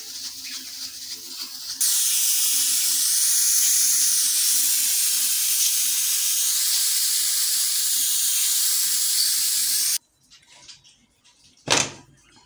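Aluminium pressure cooker letting off its steam after cooking: a loud, steady hiss of steam venting from the valve, which starts about two seconds in and cuts off suddenly near ten seconds. Near the end there is one sharp knock as the lid is handled.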